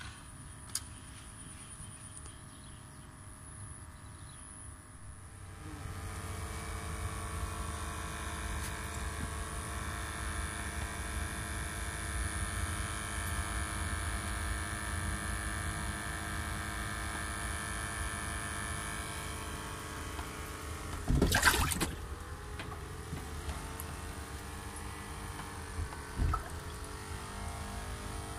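Water bubbling and churning in an aerated fish tank, with the steady hum of its air pump. A short loud burst of noise comes about three-quarters of the way through.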